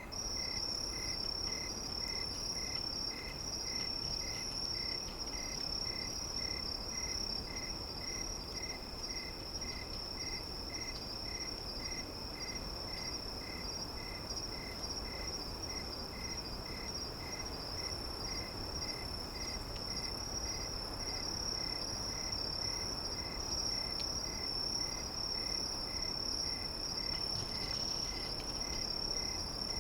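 Insects chirping, like a cricket chorus: a continuous high-pitched trill together with a lower chirp repeating about twice a second, over a faint steady hiss.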